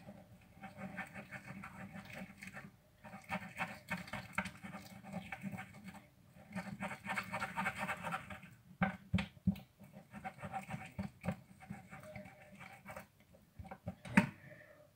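A stick stirring a sticky slime mix of glue and shaving foam in a plastic cup, with a fast, wet, crackling squelch in stretches a second or two long; the slime is still sticky. A few sharp knocks of the stick against the cup, the loudest near the end.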